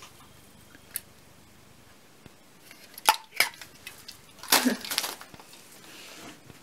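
Drink cans being set down in a packed suitcase, clinking against each other and the packaging: a faint click about a second in, two sharp clinks a little after three seconds, and a longer clatter near five seconds.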